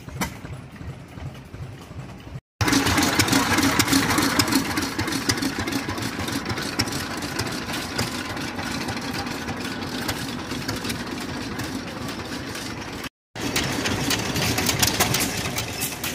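Antique stationary gas engines running, in three cuts separated by brief dropouts. The longest and loudest has a flat belt driving a small feed grinder, with rapid clattering over a steady hum.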